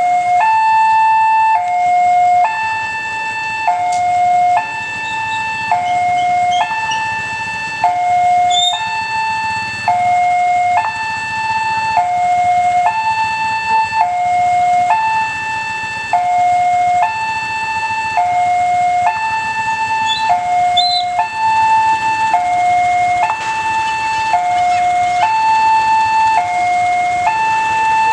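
Railway level-crossing warning alarm sounding, an electronic two-tone signal that alternates steadily between a higher and a lower tone, warning that a train is approaching and the barrier is down.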